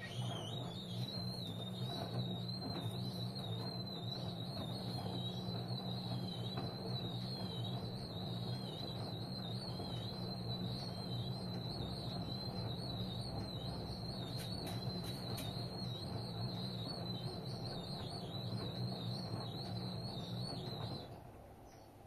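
LG DirectDrive front-loading washing machine taking in water mid-wash: a steady mains hum from the inlet valve with a thin, wavering high whistle of water through it. It starts abruptly, the whistle rising into pitch, and cuts off suddenly about a second before the end.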